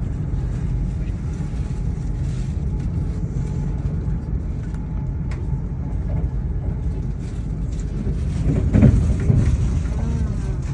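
Steady low rumble of a train in motion, heard from inside the carriage, with a brief louder swell of sound about nine seconds in.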